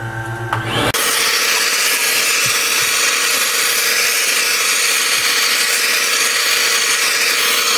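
A loud, steady rush of blown air cooling freshly vacuum-formed hot Kydex, with a steady whine underneath; it starts about a second in.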